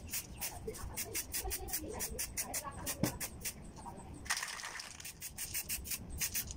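Aerosol spray-paint can giving one short hissing burst of paint about four seconds in, over a fast, even ticking of about four or five ticks a second.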